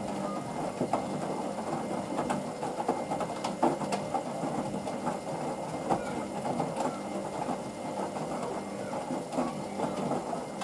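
Hoover VisionDynamic washing machine running its main wash: a steady motor hum with irregular clicks and knocks as the drum turns.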